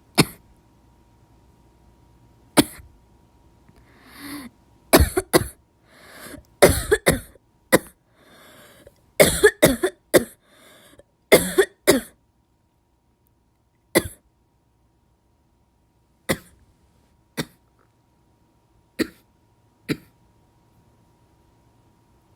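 A person's dry cough: a couple of single coughs, then a fit of rapid coughs in twos and threes with breaths drawn in between, easing to single coughs a second or two apart near the end.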